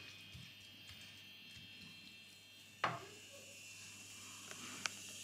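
Quiet kitchen with a faint steady hiss, broken by one sharp knock about three seconds in as the spoon is set down in the frying pan of raw chicken pieces, and a lighter click near the end.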